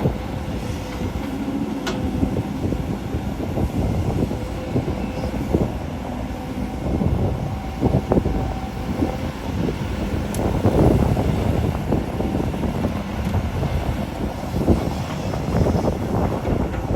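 Volvo EC210D hydraulic excavator working, digging soil and loading it into a dump truck: the diesel engine runs steadily under load, with scattered knocks and clunks from the bucket and a faint steady whine in the first half.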